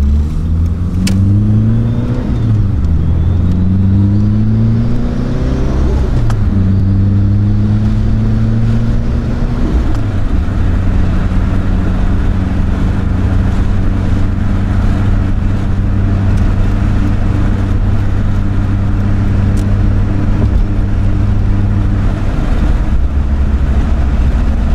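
Mitsubishi Lancer Evolution III's turbocharged 4G63 inline-four accelerating through the gears: its pitch climbs and drops back at each of three upshifts in the first ten seconds, then holds steady while cruising.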